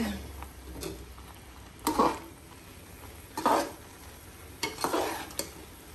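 Long metal slotted spoon stirring and scraping through wet parboiled rice in an aluminium pot, in four or five separate strokes about a second apart, over a faint sizzle of the rice cooking in jaggery syrup.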